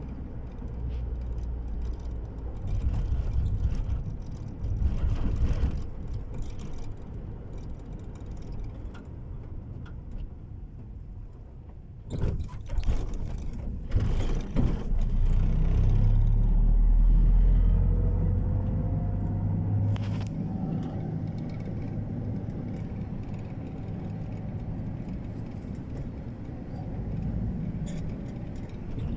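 Road and engine noise inside a moving vehicle's cabin: a steady low rumble that swells loudest about midway, with a few sharp clicks and knocks around the middle and a faint rising and falling whine in the later part.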